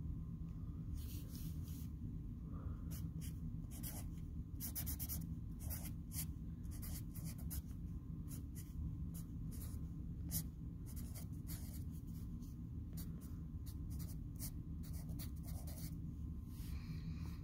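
Felt-tip marker writing numbers on a lined paper notepad: the tip scratches in short, irregular strokes over a steady low hum.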